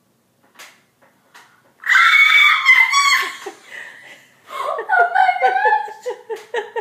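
A young girl screams with delight: one long high-pitched shriek about two seconds in, then excited squealing and laughing near the end.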